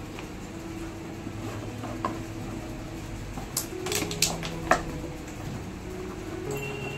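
Handling noise from gear being taken out of a backpack and a plastic bag: a few sharp clicks and clatters bunched together in the middle, over a steady background of held tones.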